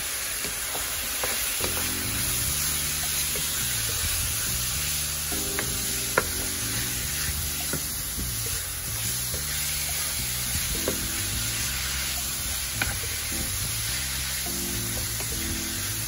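Minced chicken sizzling in vegetable oil in a nonstick skillet over medium heat, stirred and scraped around with a wooden spoon, with a few sharp taps of the spoon on the pan, the loudest about six seconds in. Soft background music plays underneath.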